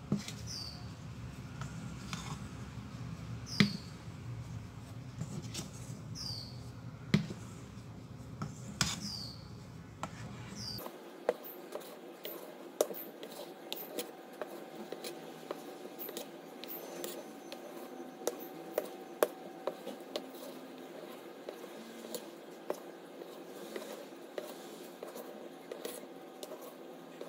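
Wooden spatula folding airy egg-white sponge batter in a stainless steel bowl: soft wet squelching with the spatula knocking and scraping against the metal side. A few sharp knocks with short squeaks stand out in the first several seconds, then many small light clicks.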